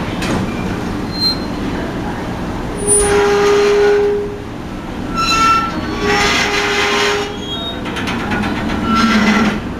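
Powered steel ferry gangway slowly lowering, with a steady mechanical rumble and several bursts of high squealing and screeching as the ramp moves. The loudest squeal comes about three seconds in and lasts about a second; shorter ones follow about halfway through and near the end.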